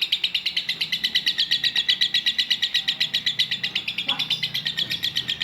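A lovebird's long rapid chattering trill, the 'ngekek' song that competition lovebirds are trained for. It is an unbroken run of short, high notes at about a dozen a second, and it stops at the very end.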